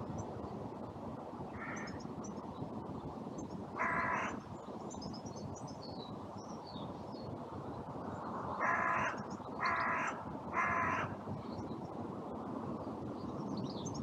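Carrion crow cawing: one caw about four seconds in, then three caws about a second apart, over steady wind noise and faint chirps of small birds.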